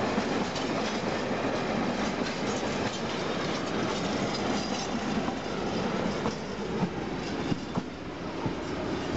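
Freight wagons rolling past over the rails: a steady rumble and clatter of steel wheels, with a few sharp clicks from about six seconds in as the last flat wagons go by. The sound eases a little near the end as the train draws away.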